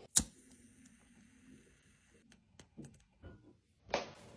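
Quiet handling noises: one sharp click just after the start, a few faint light ticks, and a short rustle near the end.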